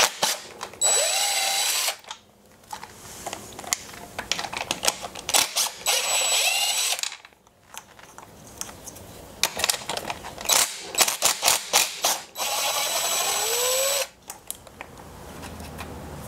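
Cordless power driver with a 13 mm socket running in three short spurts, each spinning up with a rising whine, as it loosens the bolts holding an e-bike's mid-drive motor in the frame. Clicks and rattles of the socket and bolts come between the spurts.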